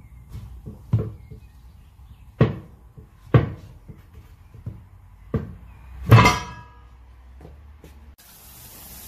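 Steel tire iron knocking and prying against the steel rim while working the bead of a 275/70R22.5 truck tire over an 11.75-inch wheel: a series of sharp clunks, the loudest about six seconds in with a metallic ring. A steady hiss starts near the end.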